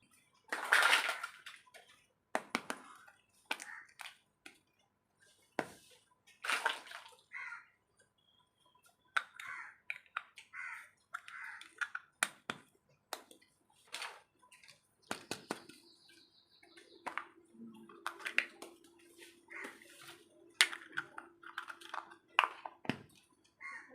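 Small toy kitchen pieces clicking and tapping, with short bursts of water splashing and sloshing. From about the middle a steady low electric hum runs until just before the end.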